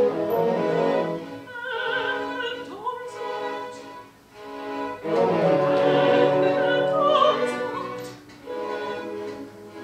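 Soprano singing an operatic aria over orchestral accompaniment with strings. The music thins out about four seconds in and swells again just after five.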